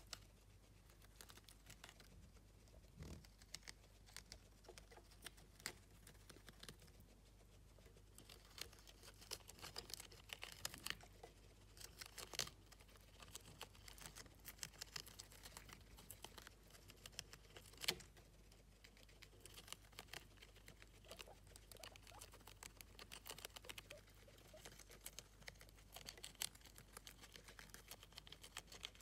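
Guinea pigs chewing and tearing at a lettuce leaf: a quiet, continuous run of small crisp crunches and clicks.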